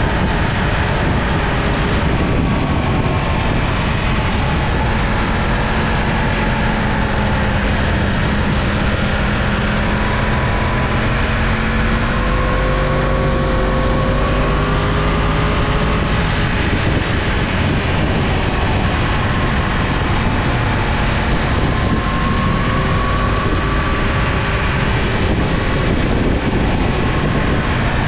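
Yamaha FZ-10 motorcycle's crossplane inline-four engine running while riding, its pitch rising and falling slowly with the throttle, under a steady rush of wind noise.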